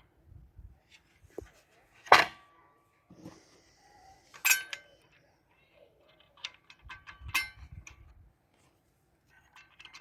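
Sharp metal clinks with brief ringing as a circular saw blade and its fittings are handled during a blade change, three standing out: the loudest about two seconds in, others near four and a half and seven seconds, with quieter handling noises between.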